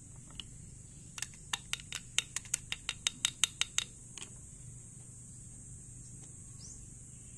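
A quick run of about fifteen sharp metallic clicks, about six a second, from hands working a motorcycle carburettor and screwdriver during disassembly. They start about a second in and stop about four seconds in, over a steady high hiss.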